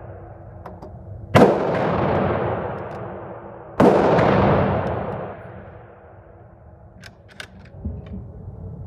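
Two rifle shots about two and a half seconds apart, each followed by a long echoing tail that dies away, then a few faint clicks.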